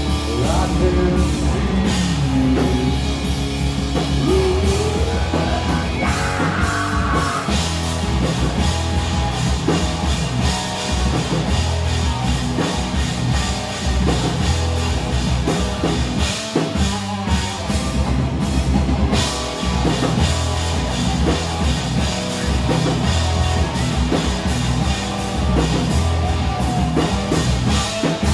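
A live rock band playing at full volume: electric guitar and a drum kit keeping a steady beat, without a break.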